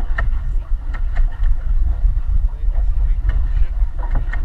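Pedal boat under way on a lake: a steady low rumble of wind on the microphone of a bow-mounted action camera, with light water splashing against the hull.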